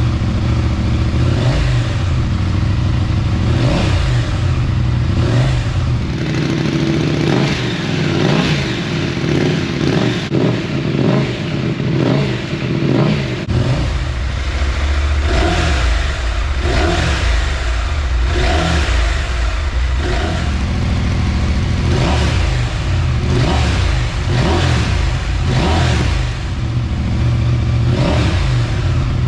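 Husqvarna Norden 901's parallel-twin engine running and being revved repeatedly, blipped every second or two, heard through its exhaust. Between about 6 and 13.5 s the sound changes character, with less deep rumble, then returns.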